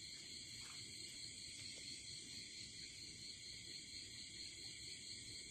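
Faint, steady night chorus of crickets and other insects: a constant high-pitched trilling that neither breaks nor changes.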